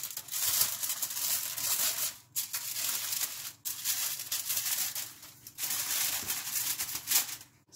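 Aluminium foil crinkling as hands fold and crimp it shut, a dense crackle in several bouts with brief pauses about two, three and a half and five and a half seconds in.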